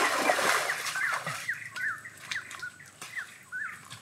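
Feet splashing through shallow muddy water during the first second, then a bird calling in a quick series of short chirps.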